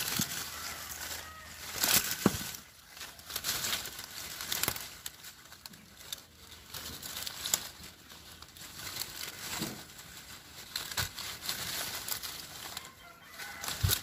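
Star apple leaves and twigs rustling and snapping as branches are handled, with several sharp knocks, the loudest about two seconds in and near the end. A chicken clucks in the background.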